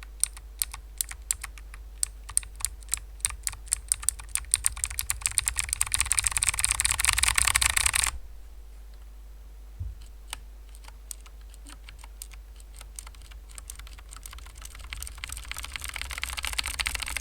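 Typing on clicky mechanical keyboards. Keystrokes start slowly and speed up into a fast flurry that cuts off suddenly about eight seconds in. A second run then starts with scattered keystrokes and builds up again to fast typing.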